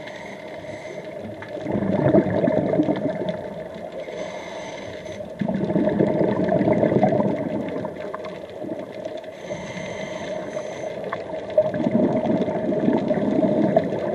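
Scuba diver breathing through a regulator underwater: short hissing inhalations alternate with bursts of exhaled bubbles that rumble for two to three seconds each, three exhalations in all. A steady hum runs underneath.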